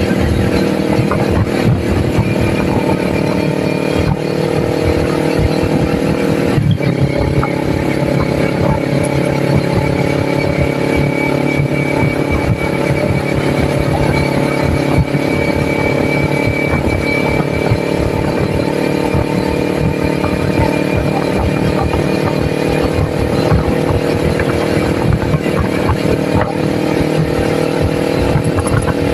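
Kawasaki Ninja 400's parallel-twin engine running steadily under way, with a brief change in engine note about seven seconds in before it settles again.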